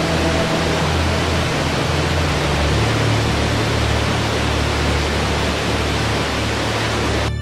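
Steady rushing of a large waterfall cascading over rock, with soft background music holding low notes underneath. The water sound cuts off suddenly near the end, leaving only the music.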